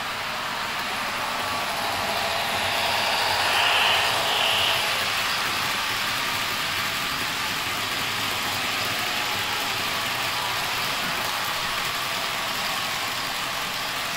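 Model railway freight wagons rolling past at speed on the track, a steady whirring rattle of metal wheels on rails that swells to its loudest about four seconds in.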